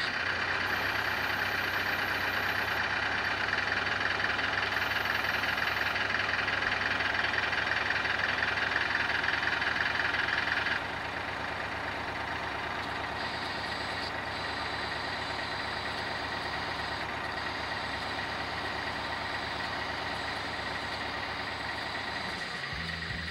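Hydraulic pump of an RC Bobcat E20 mini excavator model running with a steady whirring hum. It is louder for the first ten or eleven seconds, then drops suddenly to a lower steady level.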